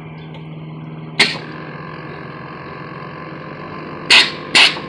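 Car air-suspension compressor running with a steady hum, broken by three short, sharp hisses of air from the suspension valves: one about a second in and two close together near the end.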